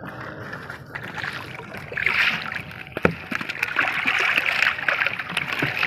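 Seawater splashing and sloshing against a boat's hull as a fishing net is worked over the side, growing louder about two seconds in, with one sharp knock about three seconds in.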